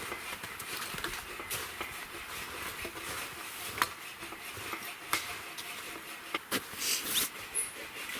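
Rustling and handling of a sleeping pad and sleeping bag as a bed is laid out, with a few sharp clicks and taps scattered through it.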